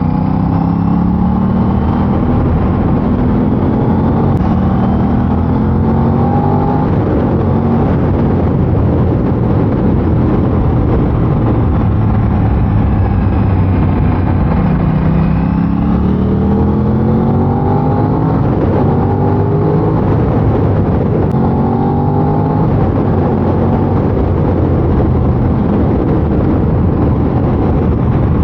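Aprilia RS660's 659 cc parallel-twin engine on its stock exhaust, accelerating hard and shifting up through the gears: the engine note climbs, drops at each shift and climbs again, several times over. It runs over a steady rush of wind and road noise.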